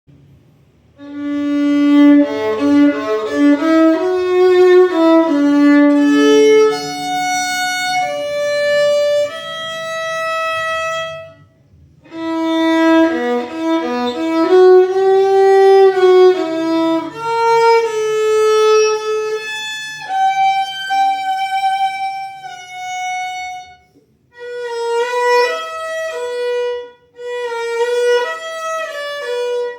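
KM Paganini HL001 violin played in a melodic sound test, bowing phrases of held and moving notes. It breaks off briefly about twelve and twenty-four seconds in.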